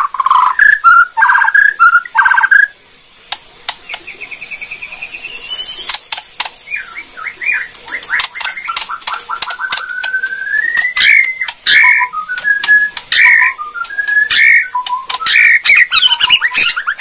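White-rumped shama (Bornean murai batu) singing: loud whistled phrases, then a quieter rapid trill rising in pitch a few seconds in, followed by a long run of quick notes climbing steadily in pitch mixed with sharp clicking 'kretekan' notes, with loud whistles returning near the end.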